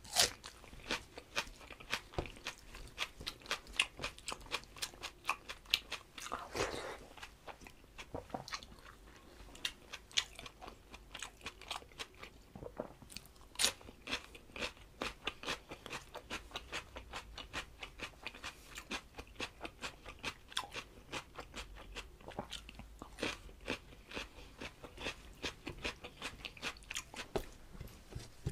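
A man chewing mouthfuls of rice and curry close to the microphone: a steady run of sharp, wet mouth clicks, about three a second.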